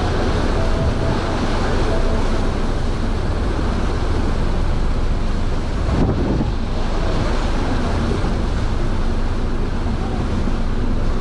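Steady low rumble of the sightseeing ship Wonder Naruto under way, mixed with the rush of its wake churning behind the stern and wind buffeting the microphone.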